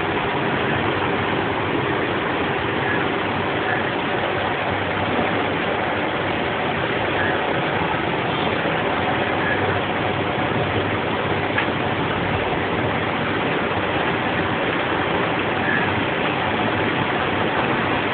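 Steady rushing background noise with a few faint small clicks scattered through it.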